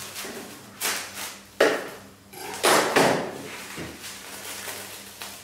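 Plastic cling film crackling and rustling in several sharp bursts as it is handled and wrapped tightly around a roll of foie gras; the loudest bursts come a little under two seconds in and again around three seconds in.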